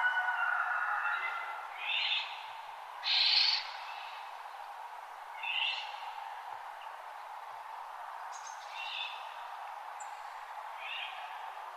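Birds of the dawn chorus calling in short chirping phrases every two or three seconds, the loudest about three seconds in, over a steady background hiss.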